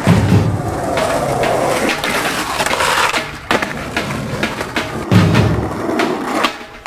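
Skateboard rolling on concrete, with sharp clacks of the board and two heavy thumps of landings, one at the very start and one about five seconds in.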